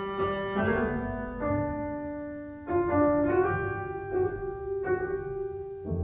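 Background piano music: sustained notes and chords, a new one struck every second or so.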